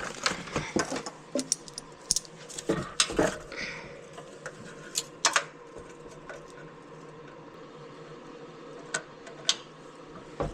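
Metal tools and engine parts clinking and clicking during hand work on a small go-kart engine, many sharp clicks in the first half, then only a couple of clicks near the end.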